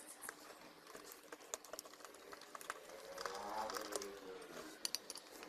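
Faint, irregular clicks and small scrapes of a screwdriver turning out a screw inside an electric iron, metal on metal.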